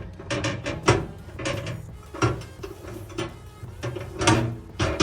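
Irregular clatter of a microwave's turntable tray and roller ring being set in place and handled: a string of sharp knocks and clicks.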